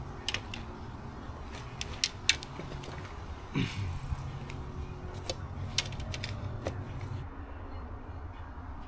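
Handling noise: scattered sharp clicks and rustles, with a low hum in the middle that stops suddenly.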